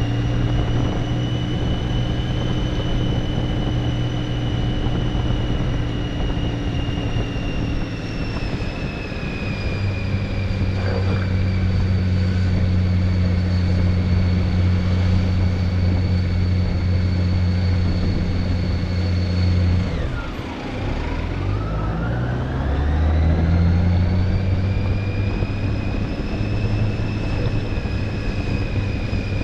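Motorcycle engine running at a steady cruise with wind noise. About two-thirds of the way through, the engine note drops sharply, then climbs again in a few quick steps as the bike shifts up through the gears.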